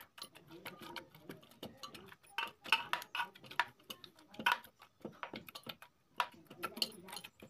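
A steel tumbler pressing and mashing soft pressure-cooked carrots in a pressure cooker, with irregular clinks and knocks as it strikes the pot's base and sides.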